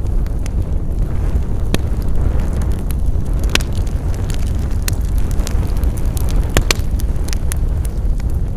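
Wood fire burning with a steady low rumble and irregular sharp crackles and pops of burning wood, a few louder snaps among many small ones.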